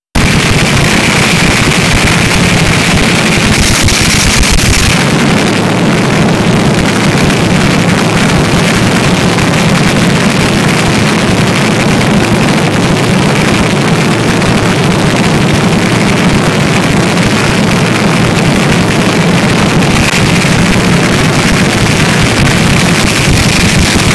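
Top Fuel dragster's supercharged nitromethane V8 running steadily at the start line, heard close up and loud enough to overload the microphone.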